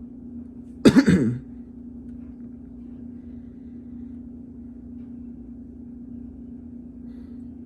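A man clears his throat once, briefly and loudly, about a second in, over a steady hum.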